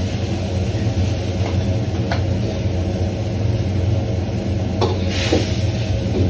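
Steady low mechanical hum of commercial kitchen equipment, with a few light clinks about two seconds in and again near the end, and a brief hiss near the end.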